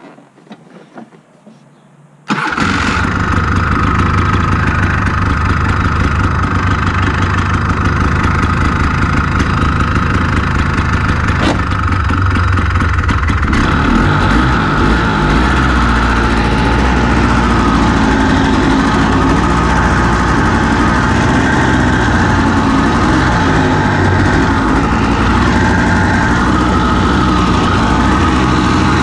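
A Honda FL350 Odyssey buggy's single-cylinder engine starts abruptly about two seconds in and then runs. After about 13 seconds the engine note changes and keeps varying as the buggy pulls away.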